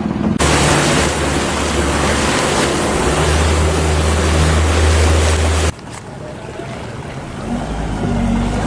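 Wind buffeting the microphone and water rushing past a moving boat, over a low steady boat-engine drone. It cuts off abruptly about two-thirds of the way through, leaving a quieter steady boat-engine hum.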